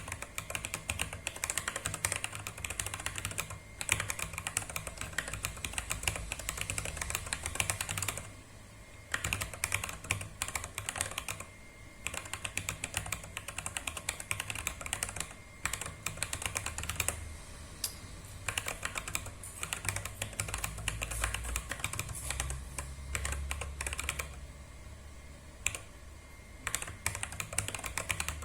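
Fast typing on a small 30-key mechanical keyboard: rapid runs of key clicks, broken by short pauses a few times.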